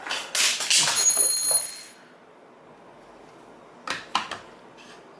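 Metal parts of a compound milling table being handled: a rough scraping slide with a short metallic ring in the first two seconds, then a few light clicks about four seconds in.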